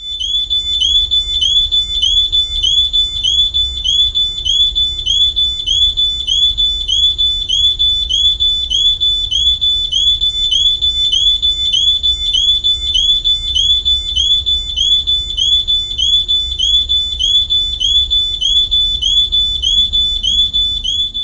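Smoke detector sounding its alarm, set off by smoke in a test: a loud, high-pitched electronic beep repeating evenly about one and a half times a second.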